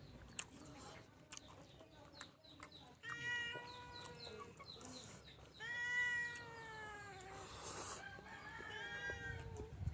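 An animal giving three drawn-out calls, each a second or two long, the middle one the loudest and sliding slightly down in pitch. Small clicks and taps sound in between.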